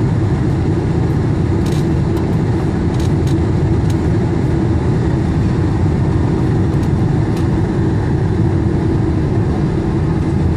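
Steady cabin noise inside a Boeing 747-400 descending on approach: a loud, even rumble of engines and rushing air with a faint steady hum.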